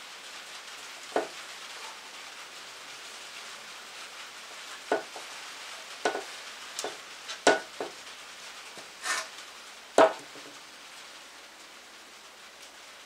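Scattered sharp clicks and knocks, about eight in all, from handling and cleaning an engine valve cover by hand, with a brief scrape about nine seconds in and the loudest knock soon after. A steady low hiss runs underneath.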